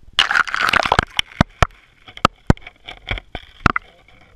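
Waterproof-housed action camera splashing down through slush into an ice-fishing hole, a second of sloshing, then about eight sharp knocks and clicks at uneven intervals as the housing is lowered underwater.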